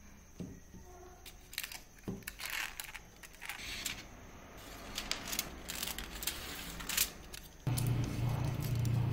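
Aluminium kitchen foil crinkling and rustling in short, irregular crackles as it is unrolled from the roll and folded by hand. A steady low hum comes in near the end.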